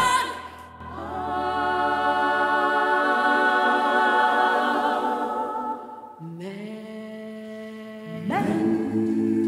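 Musical theatre ensemble singing slow held chords in harmony: a first chord from about a second in, a quieter, lower one from about six seconds, swelling louder near the end.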